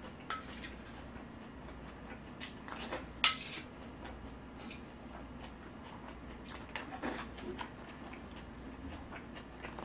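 Scattered light clicks of a spoon and chopsticks against a plate of stir-fried kimchi, the sharpest a little over three seconds in.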